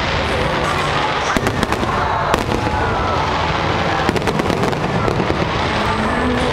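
Fireworks display: many shells bursting at once in a dense, continuous crackle of sharp cracks and pops.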